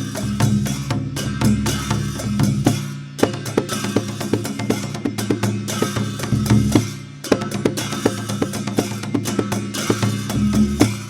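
Dhime, the Newar double-headed barrel drum, played in a fast, dense rhythm of deep booming strokes and sharp higher strikes, with a brief lull about seven seconds in.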